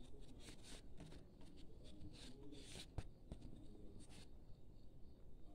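Faint rustling and scraping of a handmade paper birthday card being handled and opened, in many short irregular bursts, with one sharp click about three seconds in.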